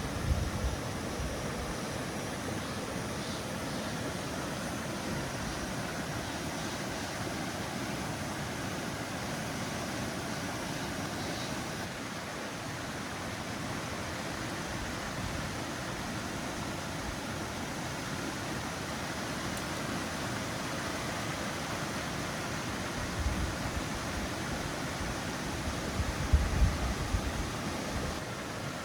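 Steady rushing of flowing water, like a mountain stream, with a few low thumps near the end.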